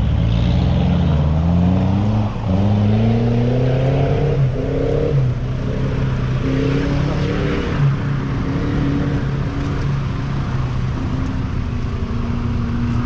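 Off-road 4x4's engine revving as it drives up a muddy track, its pitch climbing and dropping again several times.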